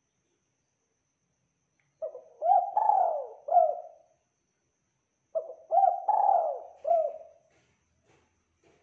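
Spotted dove (tekukur) cooing: two phrases of several notes, the first starting about two seconds in and the second a little after five seconds.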